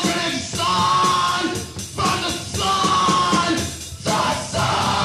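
Loud punk rock music with long, held, wailing notes about a second each, each sliding down at its end, over a dense band sound.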